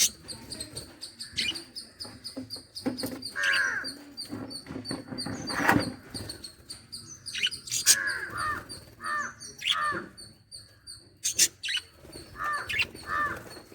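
Lovebirds chirping and squawking in short, repeated downward-sliding calls, mixed with sharp clicks.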